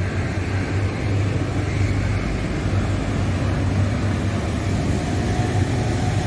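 Steady road traffic noise, mostly motorcycle and car engines running with tyre noise as they pass on the road.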